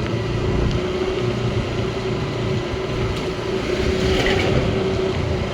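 Hero Splendor motorcycle with an aftermarket SC Project exhaust running steadily at an even engine note, with no revving.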